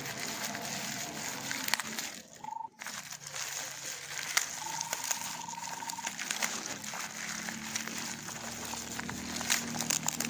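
Crinkling and clicking of packaging being handled, a dense run of small irregular crackles.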